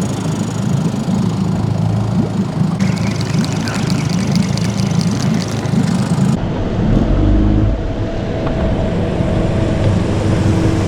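A boat motor running steadily. About six seconds in, the sound changes abruptly and the engine note shifts, while the motor keeps running.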